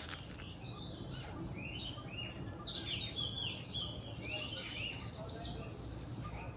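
Garden birds chirping: a dense run of short, quick downward-sweeping calls through the middle, over a steady low background rumble.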